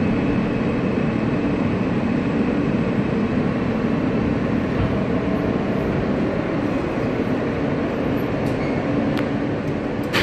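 Steady rumble inside an R160A New York subway car as the train runs along the platform into the station, with a sudden clunk near the end.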